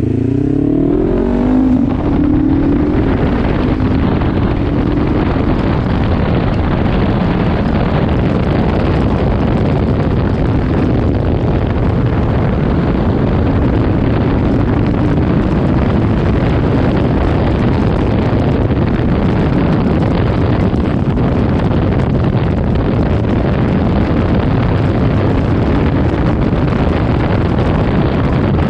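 Kawasaki KLE 500's parallel-twin engine running as the motorcycle is ridden, its pitch rising in the first couple of seconds as it accelerates, then holding steady under a constant rush of wind over the microphone.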